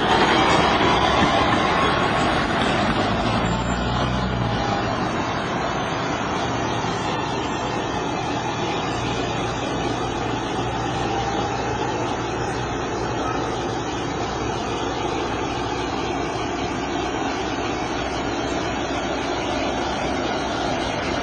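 A Rome ATAC tram passing close by and pulling away, easing over the first few seconds into a steady roar of city traffic.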